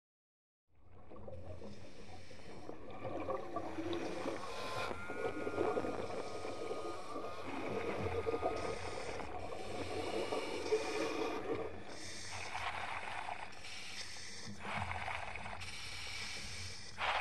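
Fades in from silence to a low rumble with creaks and wavering pitched groans of ice and water. From about twelve seconds in, a breathy hiss repeats roughly every two seconds: a diver breathing through a full-face mask regulator.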